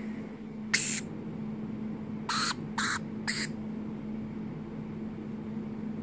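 Young varied lorikeets giving four short, harsh squawks: one about a second in, then three close together a couple of seconds later.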